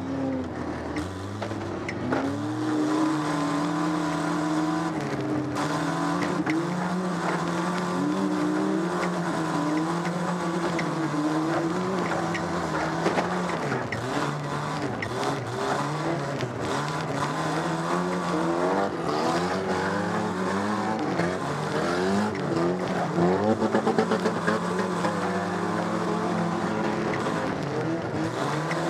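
A stock car's engine heard from inside its cabin, revving hard with its pitch rising and falling again and again as the driver accelerates and lifts around the track.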